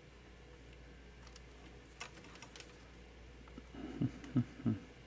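Light clicks and taps of multimeter probe tips on the pins of the 7180 display-driver chip while a reading is being found, with three duller knocks close together near the end.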